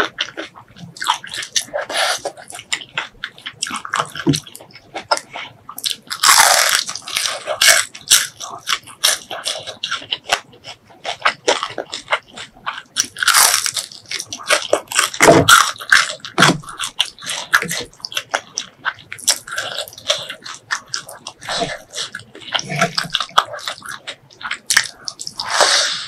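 Close-miked eating: crisp fried fish crunching between the teeth, and wet chewing with many small mouth clicks. There are a few louder crunching bites spread through.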